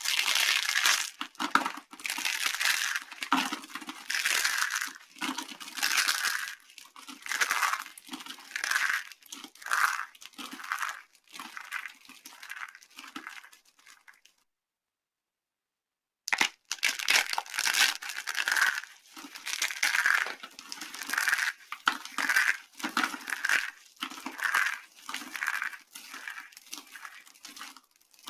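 Dry soap being crushed: a run of crisp, crumbling crunches about one a second, breaking off for a short silence near the middle and then starting again.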